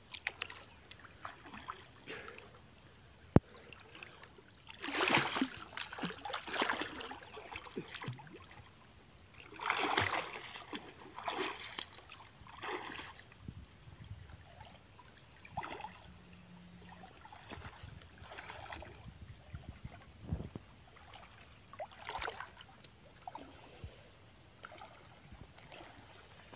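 River water splashing and sloshing in irregular bursts as a person swims and wades through it, pulling a branch along. A single sharp click about three seconds in.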